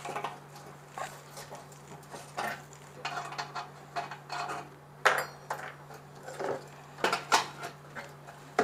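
Irregular metal clinks and scrapes of a spanner against the terminal nuts of a heating element inside a stainless steel autoclave drum, as the nuts are worked loose. The sharpest clinks come about five seconds in and again a couple of seconds later.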